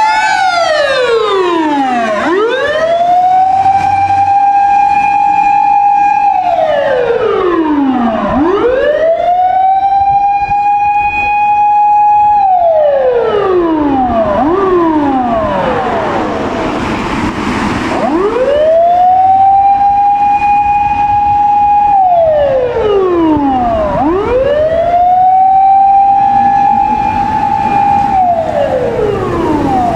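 Japanese fire engine motor siren wailing. It winds up, holds a steady high note, then falls away, in repeated cycles a few seconds long, with a second siren overlapping at times. A rush of passing-vehicle noise comes about halfway through.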